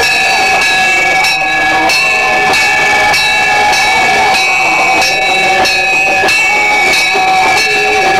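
Metal bells struck repeatedly in a steady rhythm, about three strikes every two seconds, their ringing tones held and overlapping throughout: bells rung during an aarti.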